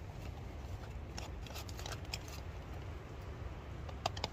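Crinkling and rustling of a foil-lined dehydrated-food pouch being handled. It gives scattered sharp crackles about a second in and again near the end, over a steady low rumble.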